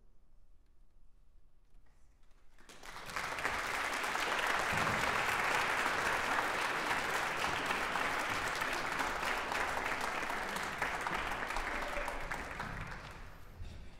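Audience applause: a short hush, then clapping that starts about three seconds in, holds steady, and fades away near the end.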